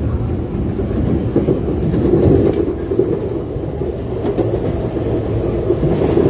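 Inside a moving MTR SP1900 electric train: steady rumble of the wheels on the track, with a few faint clicks.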